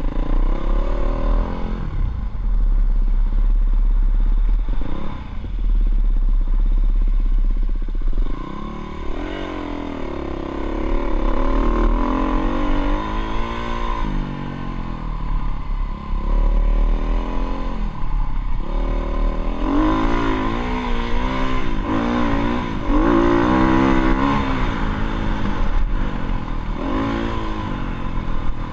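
Dirt bike engine revving while being ridden off-road, its pitch rising and falling again and again as the throttle opens and closes, over a heavy low rumble.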